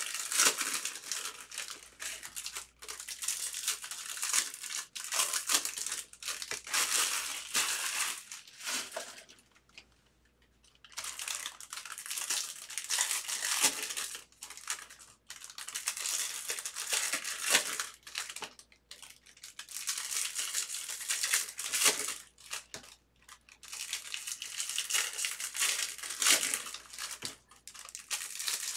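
Foil trading-card pack wrappers being torn open and crinkled by hand, in repeated bursts of rustling with a short pause about ten seconds in.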